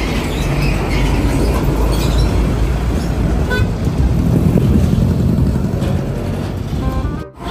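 Heavy road vehicle passing close, its diesel engine giving a loud, steady low rumble, with a brief horn toot partway through. The sound cuts off abruptly just before the end.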